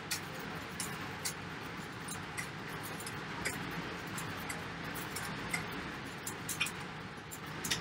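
Stationary exercise bike being pedalled at an easy warm-up pace: a steady whir with scattered light clicks.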